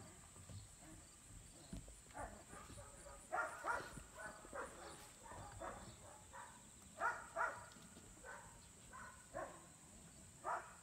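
Pyredoodle puppies yipping: about ten short, faint yips, irregularly spaced.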